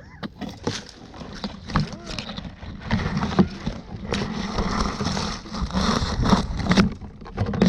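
Radio-controlled truck running: a noisy rattle with scattered knocks that grows louder about three seconds in.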